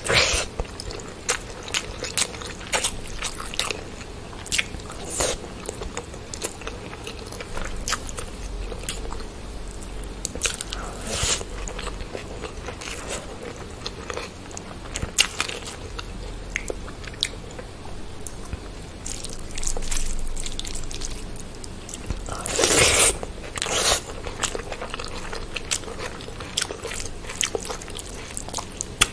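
Close-miked eating of chicken biryani and curried boiled eggs by hand: biting and wet, smacking chewing with many short clicks, and a louder stretch of noise about three-quarters of the way through.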